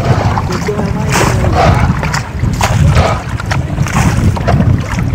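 Strong wind buffeting the microphone with a constant low rumble, over choppy lake water slapping irregularly against a small canoe.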